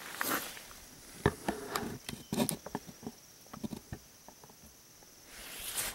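Irregular crunching footsteps on gravel with clothing rustle, and a sharper click a little over a second in.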